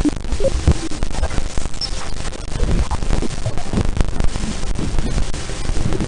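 Loud crackling static with a hiss and a low rumble underneath.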